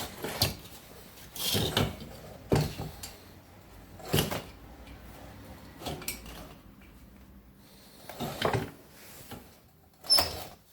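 Irregular metal clunks and scrapes of hand tools working on a Volkswagen air-cooled engine's parts, about six separate knocks a second or two apart.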